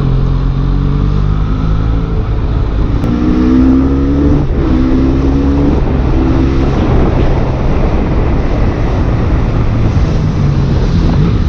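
Benelli Leoncino 500's parallel-twin engine running under way. Between about three and seven seconds in, its pitch rises, drops and rises again several times as the bike accelerates through the gears, then settles into a steady run.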